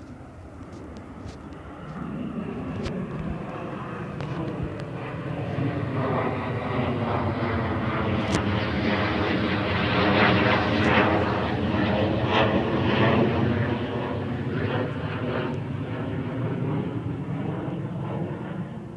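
A jet fighter flying over. Its rushing engine noise builds from about two seconds in, is loudest a little past the middle with a sweeping, phasing quality as it passes, then slowly fades.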